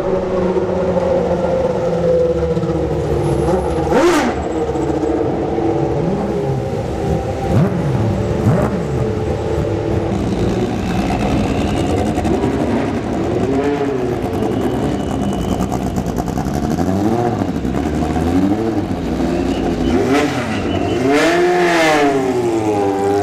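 Group C racing prototypes running on the circuit, their engines revving up and down as they pass, one after another. Near the end a car passes loudly, its pitch swinging up and down.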